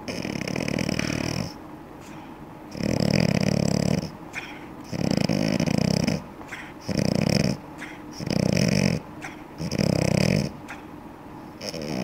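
Sleeping Boston terrier snoring loudly: about six snores, each lasting about a second, coming roughly every one and a half to two seconds.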